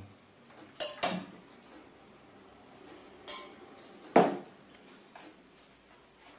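Stainless steel tableware (a steel bowl, spoon and plate) clinking and knocking a few times as food is served, with the loudest knock a little over four seconds in.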